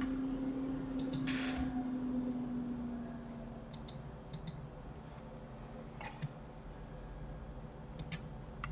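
Computer mouse and keyboard clicks, several over the span and mostly in quick pairs, over a low steady hum that fades out about three seconds in.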